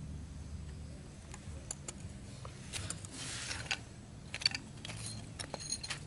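Small metallic clicks and clinks from the steel scissors of a homemade bird trap being handled and set, some with a brief high ringing. A short rustle comes about three seconds in.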